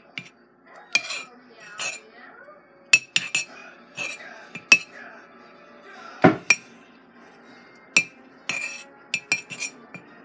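A metal spoon clinks and taps against the rim and sides of a ceramic mug while smoothing frosting on top of a mug cake, in irregular light knocks, with one heavier knock about six seconds in.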